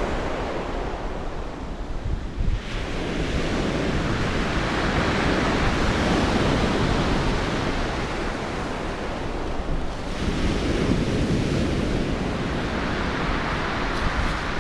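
Sea waves breaking and washing over a shingle beach, the surf rising and falling in slow surges, with wind rumbling on the microphone.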